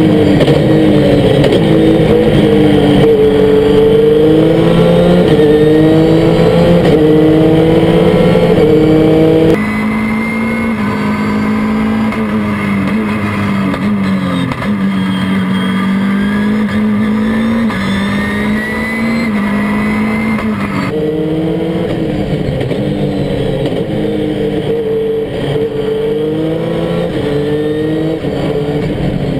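Race-prepared Dacia Duster's engine at full throttle up a mountain road, climbing in pitch and dropping back at each gearshift. About a third of the way in the note turns quieter and lower as the sound switches to a camera outside the car. Near the end it switches back to the louder sound inside the cockpit.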